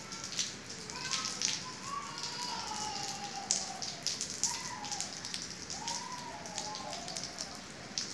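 Steady rain falling on a wet tiled yard and roof, with many close individual drops tapping and dripping. Faint wavering pitched sounds, voice-like, can be heard underneath.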